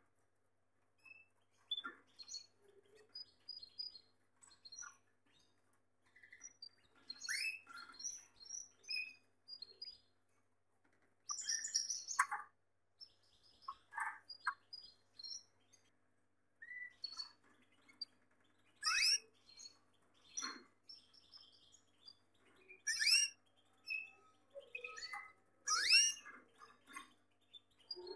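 Gloster canaries chirping and calling in scattered bursts of short notes, some sweeping upward, with brief pauses between.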